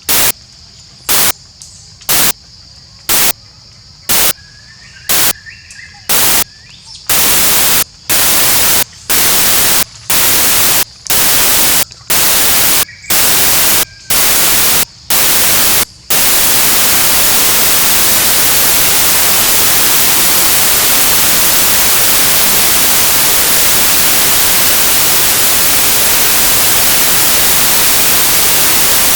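Loud static hiss cutting in and out about once a second, each burst longer than the last, until it runs without a break from about sixteen seconds in. Between the early bursts, quieter outdoor ambience with a steady high tone.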